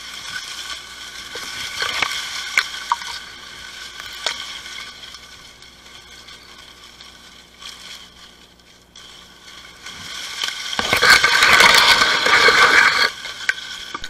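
Tall dry grass leaves and stalks rustling, scraping and snapping against the camera as someone pushes through them, with a loud stretch of dense crackling about eleven seconds in.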